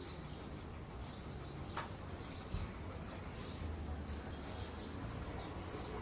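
Small birds chirping, short high calls repeating every second or so over a low steady background hum, with one sharp click a little under two seconds in.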